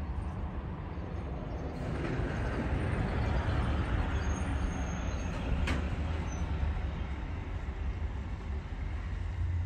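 Outdoor ambience: a steady, uneven low rumble with a rushing noise that swells for a few seconds in the middle, and a single sharp click about two-thirds of the way through.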